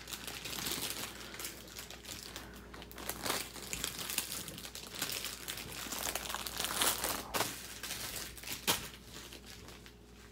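Small plastic bags of diamond-painting drills crinkling as they are handled and gathered, in irregular rustles with a few sharper crackles, dying down about nine seconds in.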